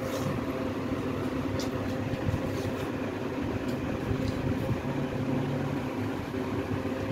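A steady machine hum with a low rumble, like an electric fan or cooler running, with a few faint clicks.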